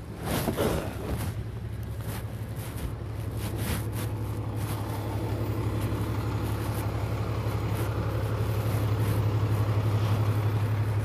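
Knocks and rustling as someone climbs out of a car, with scattered clicks over the next few seconds. A steady low hum of idling vehicle engines grows gradually louder.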